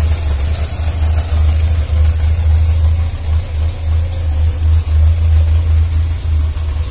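Yamaha XJ600S Diversion's air-cooled inline-four engine idling steadily.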